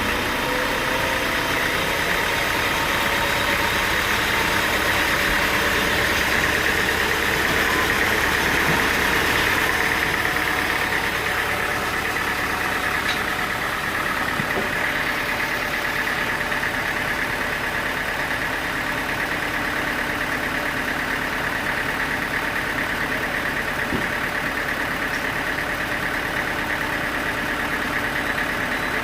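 Engine-driven sawmill machinery running steadily, with a continuous high whine over the engine sound that is strongest in the first third and eases a little after.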